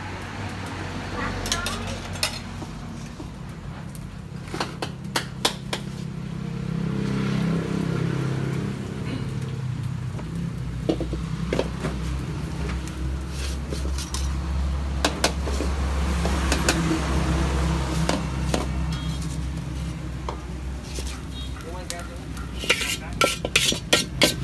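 Metal spatula clinking and scraping against aluminium bánh xèo pans while batter sizzles in hot lard; the clinks are scattered, then come in a quick run near the end.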